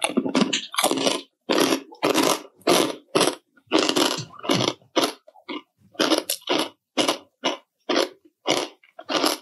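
Chewing chicharon (deep-fried pork rinds) close to the microphone: a steady run of loud, dry crunches, about two a second.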